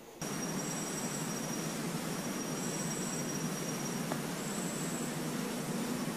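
Night insects calling in thin, high, repeated notes that come in and out about every two seconds, over a steady hiss. There is one faint tick about four seconds in.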